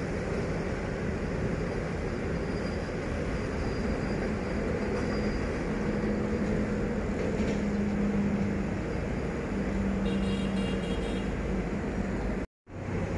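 Steady rumble of a running vehicle with a low engine drone under it; the sound drops out completely for a moment near the end.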